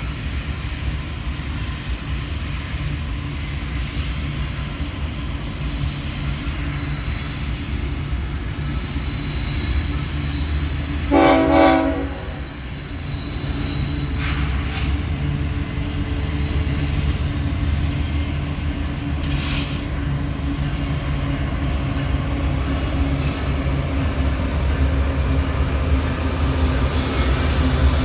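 Diesel locomotives of a BNSF freight train running past with a steady low rumble that builds toward the end, and one short horn blast about eleven seconds in, part of a horn salute.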